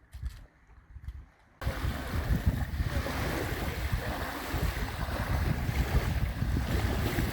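Wind buffeting the microphone over a steady rush of wind and surf. It starts abruptly about a second and a half in, after a few faint knocks.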